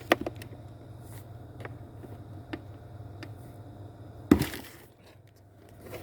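Plastic glovebox of a Honda Vezel being flexed free of its side stops: a sharp click at the start, a few light ticks, then a loud snap about four seconds in as the second side pops out.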